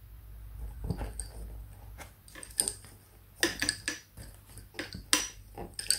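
Bobbin-lace bobbins clicking against each other as pairs are picked up and crossed. Several sharp separate clicks in the second half, over a soft handling rustle at the start.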